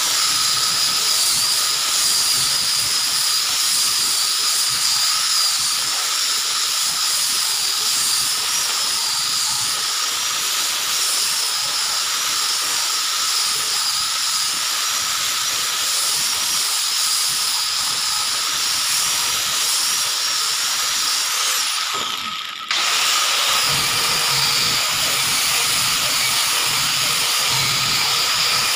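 Electric angle grinder with a sanding disc running at full speed against wood, a steady high-pitched whine over a loud hiss of abrasive on timber. The sound cuts out for a moment about three quarters of the way through, then carries on as before.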